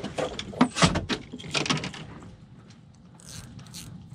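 Handling noise from a fishing rod and spinning reel on a boat: several sharp clicks and knocks in the first two seconds, then fainter ticks.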